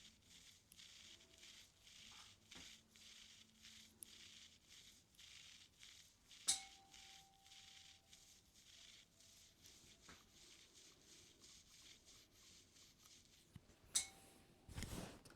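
Ear-cleaning tool scratching and brushing inside the ear close to the microphone: faint, quick, even strokes, with two sharp clicks that ring briefly and a dull bump near the end.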